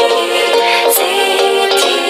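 Smartphone ringtone: an electronic melody of held notes that change pitch, with a few sharp percussive ticks.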